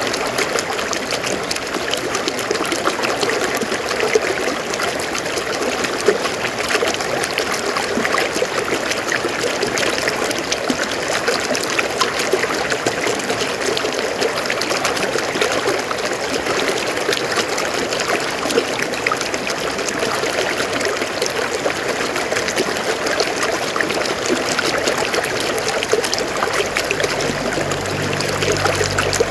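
River water flowing steadily over rocks, a continuous trickling and babbling rush. A faint low hum comes in near the end.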